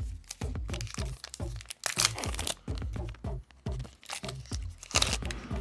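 Electronic background music with a steady beat. About two seconds in, and again near the end, the foil wrapper of a trading-card pack crinkles and tears.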